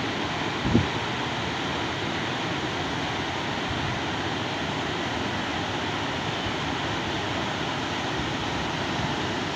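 Muddy floodwater rushing in a fast torrent and churning against bridge piers: a steady, unbroken rush of water, with one brief low thump about a second in.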